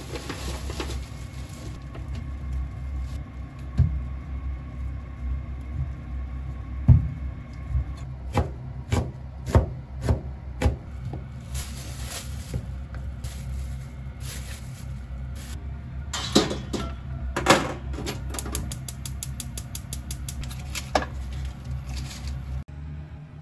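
Kitchen knife chopping on a plastic cutting board: scattered single knocks, then a fast, even run of chops near the end, over a steady low hum.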